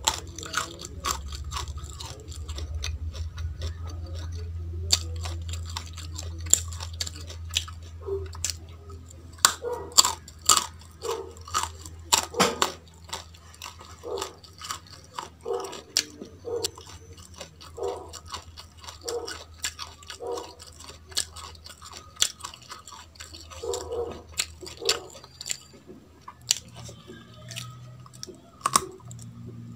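Close-miked chewing of raw baby carrot, with irregular crisp crunches, several a second at times.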